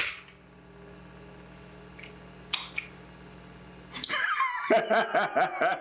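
Quiet steady low hum, then about four seconds in a man breaks into quick, rhythmic chuckling laughter.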